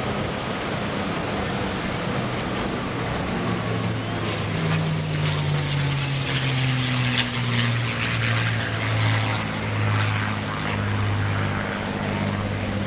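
A P-51D Mustang's Packard Merlin V-12 engine drones through a flypast. It grows louder about four seconds in, and its low pitch drops as the aircraft goes by.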